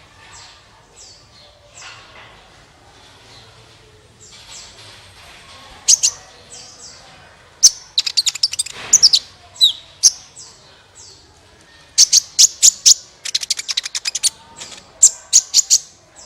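Sunbird song (the bird Indonesian keepers call 'kolibri'). It begins with faint, high, thin chirps sliding downward, then from about six seconds turns to loud bursts of very rapid, sharp chattering trills, repeated several times.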